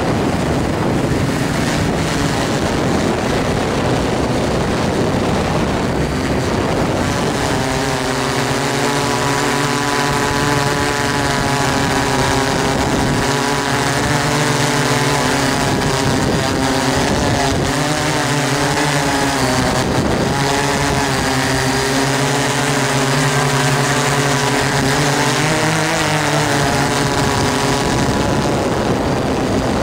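DJI S800 hexacopter's six brushless motors (Tiger MN4014 320KV) and 15-inch propellers humming in flight through gusty wind, over a steady rush of wind. For the first several seconds only the rush is heard; then a humming of several tones sets in, its pitch rising and falling as the motors speed up and slow down to hold the craft steady against the gusts.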